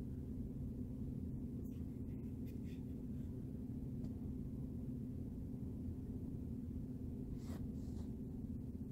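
Steady low room hum with a few faint clicks.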